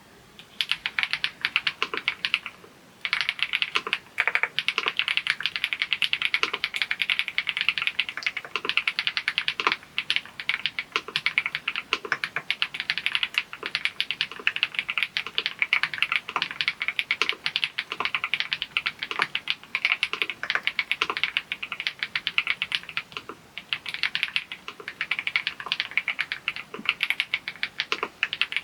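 Continuous fast typing on an EPOMAKER TH99 PRO mechanical keyboard: a dense run of key clacks, with the pebble-like sound the keyboard is known for, and a short pause about three seconds in.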